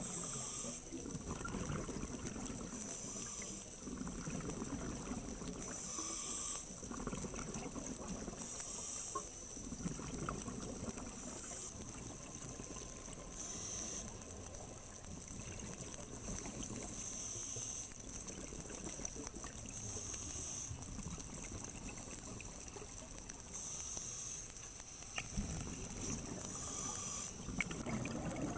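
Scuba regulator breathing underwater: a hiss on each inhalation alternating with the burble of exhaled bubbles, one breath every three seconds or so.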